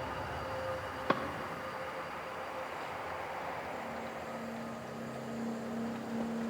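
Steady airy wind-like rush under sustained tones, part of an ambient tomb soundscape. A sharp click comes about a second in, and a new low held tone enters around four seconds in.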